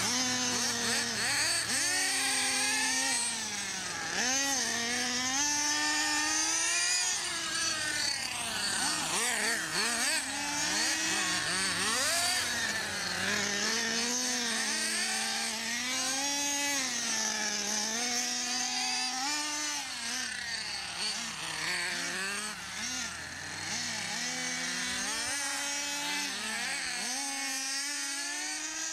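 Small nitro engines of radio-controlled cars running and revving as they are driven, their whine rising and falling every second or two with throttle. At times two engines sound at once.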